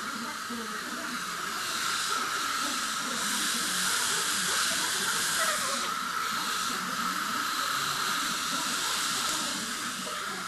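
Hair dryer blowing steadily, a rushing hiss with an even fan whine, growing louder for a few seconds in the middle.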